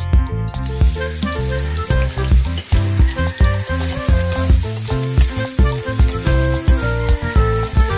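Sliced hotdogs sizzling in hot oil in a wok, the hiss starting about half a second in as they hit the oil and keeping on steadily. Background music with a steady beat plays throughout.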